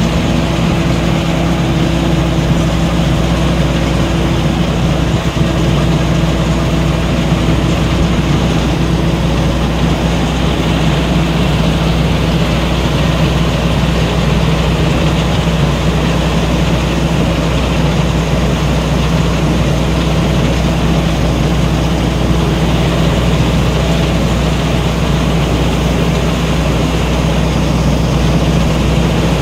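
T. Charoen Karn Chang rice combine harvester running steadily under load as it cuts ripe rice, its engine and threshing machinery giving a constant loud hum.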